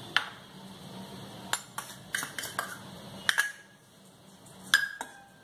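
A metal spoon and scoop knocking against a stainless steel bowl, about seven sharp clinks at uneven intervals, a couple of them ringing briefly, as powdered sugar is tipped in and stirred into desiccated coconut.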